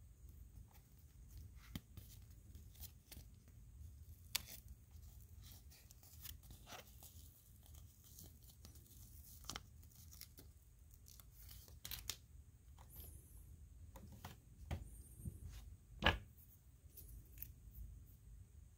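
Lego pieces being handled and clicked together, with plastic packaging rustling: scattered small clicks and rustles, a sharper click about sixteen seconds in.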